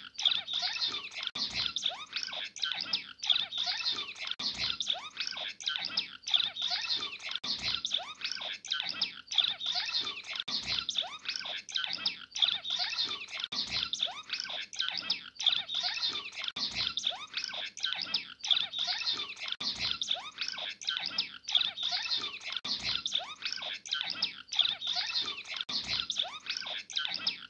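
Male cut-throat finch singing: a dense, unbroken stream of short high chirps and buzzy warbles.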